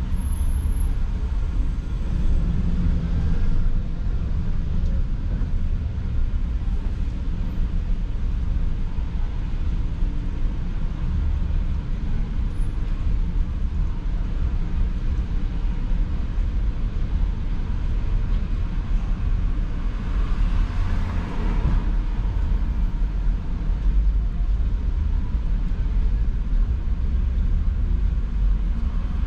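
Steady low rumble of a car heard from inside the cabin, with city street traffic around it; a brief louder swell of passing traffic about twenty seconds in.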